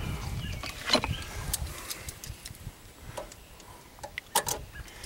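Scattered small clicks and taps of metal parts being handled, with a pair of sharper clicks a little past four seconds in.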